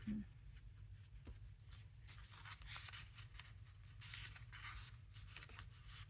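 Faint rustling and sliding of paper cards being handled and tucked into paper journal pockets, in a series of short soft scrapes over a low steady hum.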